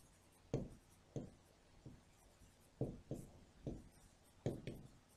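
Marker pen writing on a whiteboard: a handful of faint, short strokes, irregularly spaced.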